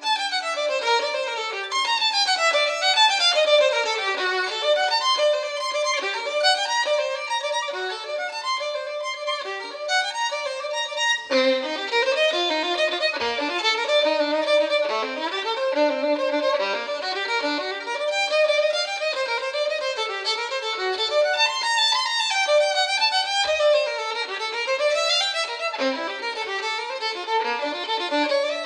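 Instrumental music with fast runs of notes climbing and falling, a new phrase starting sharply about eleven seconds in.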